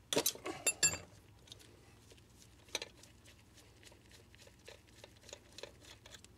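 Metal clinks and rattles from a wrench and an oil burner's nozzle-and-electrode assembly being handled: a quick cluster of sharp clinks in the first second, then faint small clicks and handling noise.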